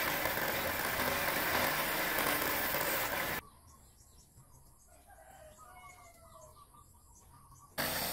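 A small electric water-pump motor turning a sharpening wheel with a knife blade held against it: a steady motor hum under a grinding hiss. About three and a half seconds in it cuts off abruptly to a quiet background with faint bird calls, and the motor and grinding come back abruptly near the end.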